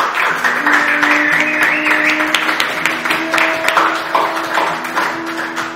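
Music with long held notes over a dense patter of clapping.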